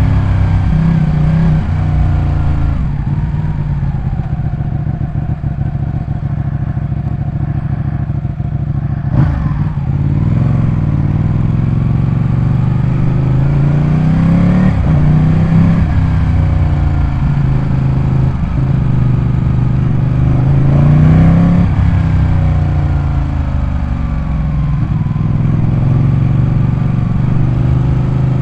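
Ducati 899 Panigale's Superquadro L-twin engine revving, its pitch climbing and falling several times with short breaks between the climbs. The loudest climb comes about three quarters of the way through.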